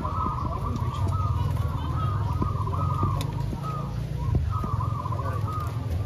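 Many caged zebra doves (perkutut) cooing at once, their overlapping coos running into an unbroken chorus, over a steady low background rumble.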